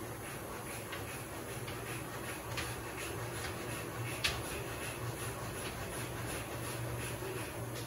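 Steady hiss and low hum of an electric standing fan running, under faint soft brushing of hands stroking gelled skin in massage. One short click sounds about four seconds in.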